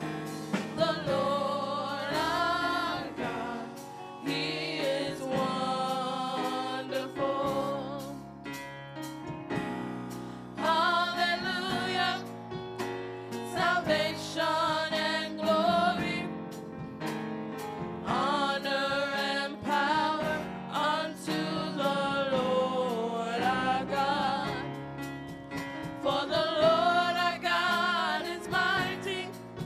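Gospel praise team of four women singing together into microphones, their voices in held, bending phrases over steady low accompaniment notes.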